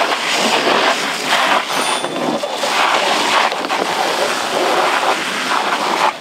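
Loud, steady rushing hiss of fire hoses spraying water onto a burning boat.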